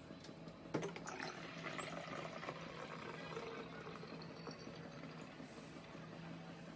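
Water streaming from a Dr Aquaguard Geneus water purifier's dispenser spout into a plastic bottle, filling it, over a steady low hum.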